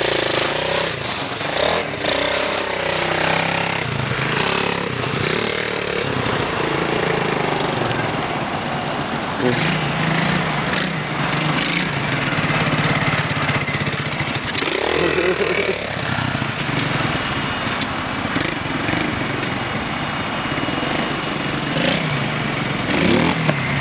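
A 125cc pit bike's single-cylinder engine with a makeshift exhaust, running and revving as it is ridden along the road, its pitch rising and falling with the throttle.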